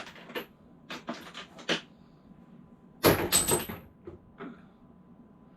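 Steel sockets clinking and clattering as they are picked out of a toolbox and sorted into boxes: a few separate clicks, then a louder rattle with a short metallic ring about three seconds in, then a couple of faint clicks.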